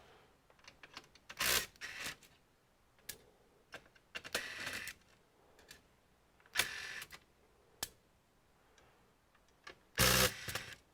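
Scattered sharp clicks and a few short scraping bursts, the loudest near the end, from small parts, screws and tools being handled while taking apart an all-in-one computer.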